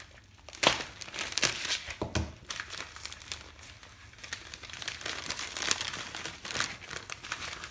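Plastic postal mailer bag crinkling and tearing as it is opened by hand: dense crackling with a few sharper snaps.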